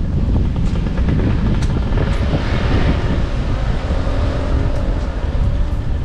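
Wind rumbling on the microphone, with a passing motor vehicle's engine swelling and fading about halfway through.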